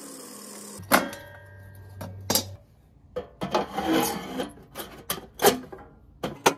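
An angle grinder winding down with a faint falling whine, then sheet-metal clanks about a second in and again a second or so later. After that comes irregular scraping and rubbing as a steel gutter downspout is slid through holes cut in a steel ammo box.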